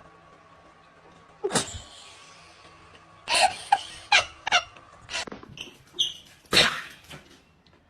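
A pet animal's short, sharp calls, about eight of them in quick bursts over several seconds, the loudest near the middle and end.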